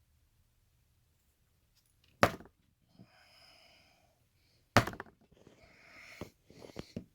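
Small parts being handled during padlock disassembly: two sharp clicks about two seconds and five seconds in, with faint scraping and rustling between and after them.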